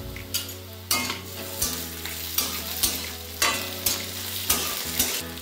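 Metal spatula stirring and scraping across an aluminium kadai as a spice tempering of chillies, seeds, onion, garlic and ginger fries in hot oil, sizzling. The scrapes come about twice a second.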